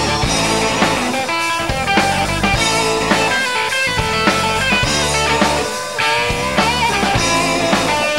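Rock band playing live with drums, bass and electric guitar in an instrumental passage, a lead guitar line of single notes stepping and bending over the beat.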